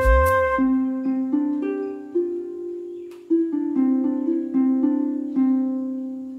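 Background music: a slow melody of separate plucked notes, each ringing and fading, with a low beat that drops out about half a second in.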